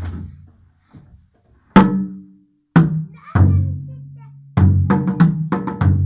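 Dunun bass drums of a doun doun ba set struck with sticks: three separate strokes, each ringing with a low pitch, the last one deeper and longer. A quick, steady rhythm starts about four and a half seconds in.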